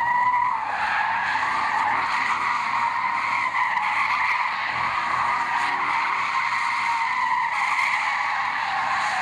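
A BMW's tyres squealing in a burnout as the car slides sideways: one long, unbroken, high-pitched screech that wavers a little in pitch.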